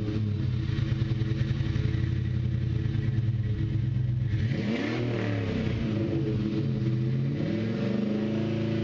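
A 2004 Jeep Grand Cherokee's 4.7-litre V8 heard at the tailpipe through a Flowmaster 50 Series HD muffler. It runs steadily, is revved up and back down about halfway through, and climbs again near the end.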